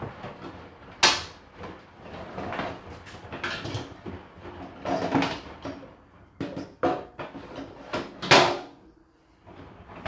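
Dishes and crockery clattering and knocking as they are loaded into the racks of a dishwasher, in irregular bumps with a couple of sharper clanks, about a second in and near the end.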